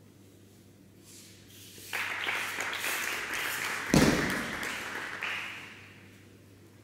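A judoka thrown onto the tatami lands in a breakfall: one heavy thud about four seconds in. It comes amid a rushing noise that starts about two seconds in and fades out after the landing.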